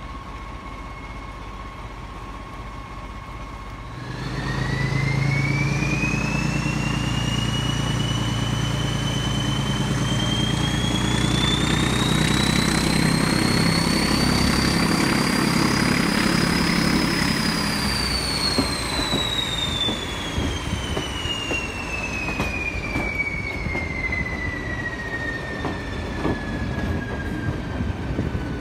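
Diesel locomotive hauling the train, heard from a coach window: about four seconds in the engine takes power and its turbocharger whistle rises steadily. A little past halfway the power comes off, the engine note drops away and the whistle falls slowly in pitch as the turbocharger runs down, leaving the clicking of wheels over rail joints.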